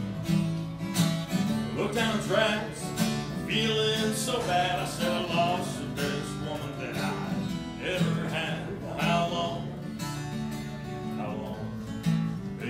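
Acoustic guitar playing a blues, with a repeating low bass figure under a higher melody whose notes bend in pitch.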